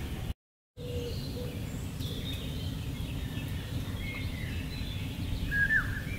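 Outdoor ambience of small birds chirping and calling, with a short falling whistle near the end, over a steady low background noise. It opens with a brief moment of dead silence.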